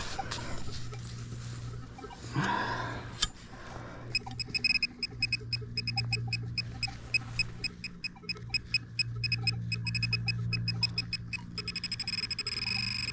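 Metal detecting pinpointer probe beeping as it is worked through a dug hole. The beeps come irregularly at first, then speed up into a rapid, even chatter in the last second or so as it closes on the buried target. A steady low hum runs underneath.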